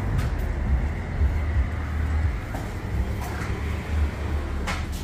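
Uneven low rumble of background noise, with a few faint clicks and knocks scattered through it.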